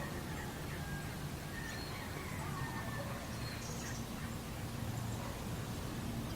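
Birds calling outdoors, a scattered series of short, faint chirps over a steady low background hum.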